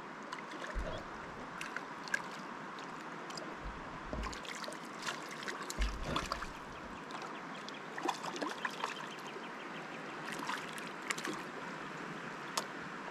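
River water running steadily, with irregular small splashes and ticks on top and a few low thumps.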